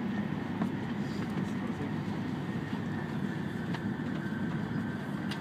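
Steady running rumble of an E5 series Shinkansen, heard from inside the passenger cabin.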